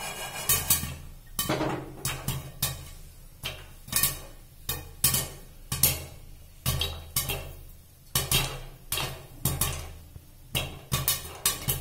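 Popcorn kernels popping in a steel pan under a glass lid: sharp, irregular pops, about two or three a second, each kernel bursting and striking the lid.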